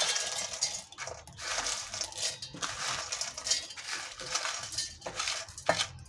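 Brittle sun-dried tomato pieces clattering and clinking against steel, coming in irregular rattles with short pauses, as the dry pieces are handled in steel dishes and a mixer-grinder jar.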